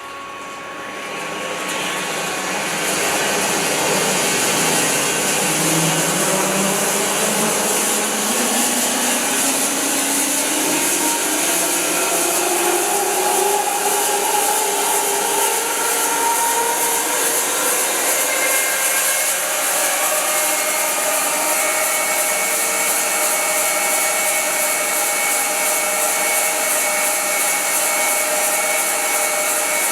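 Wide-cut bandsaw mill running up to speed and sawing through silver maple. It swells over the first few seconds, its tones climb slowly in pitch for about a quarter of a minute, then it runs steady with a strong hiss.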